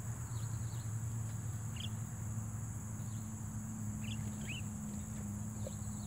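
Insects droning steadily on one high pitch, with several short, high bird chirps scattered through, over a low steady rumble.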